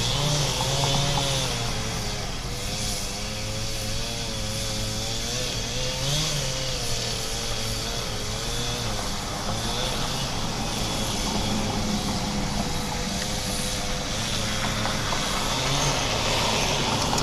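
Chainsaw running and cutting into a storm-downed tree, its engine pitch wavering up and down over and over as the chain loads in the wood and revs free.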